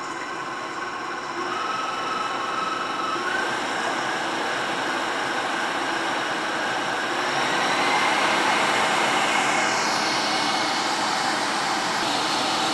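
KitchenAid stand mixer with the whip attachment beating egg whites in its stainless steel bowl toward stiff peaks. The motor runs with a steady whine that steps up in pitch and loudness three times as the speed is turned up.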